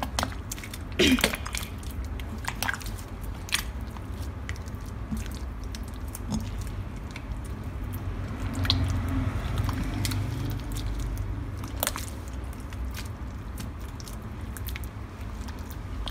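Wet, sticky slime being kneaded and squeezed by hand in a glass bowl of activator while it is still setting: squelching with many scattered sticky pops and clicks.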